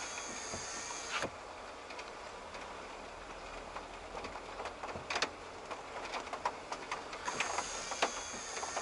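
Heavy rain on a car, heard from inside the moving car: a steady hiss with scattered sharp raindrop ticks on the roof and windshield that grow denser near the end. A thin high whine drops out about a second in and comes back near the end.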